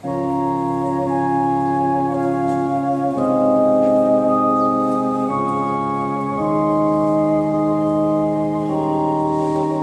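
Electronic keyboard set to an organ sound, playing slow sustained chords that change every second or two.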